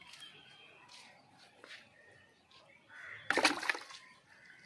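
Quiet outdoor ambience with scattered bird chirps, and one loud, harsh crow caw about three and a half seconds in.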